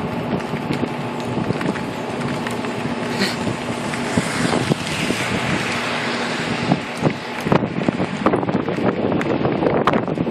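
Heavy rain falling as a steady hiss, with many sharp drips and splashes close by, thicker in the second half.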